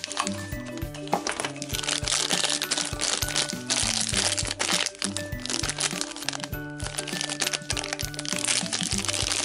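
Crinkly plastic wrapper of a toy blind pack crackling as it is handled and pulled open by hand, over background music.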